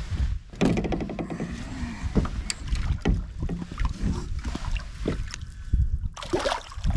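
Light splashes and knocks of water against a boat's hull as a redfish is lowered over the side and released, over a low rumble of wind on the microphone.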